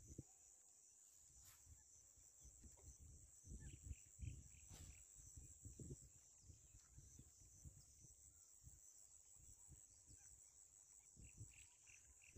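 Near silence with a faint, steady high-pitched insect drone, crickets or similar, broken by scattered soft low knocks and two sharp clicks.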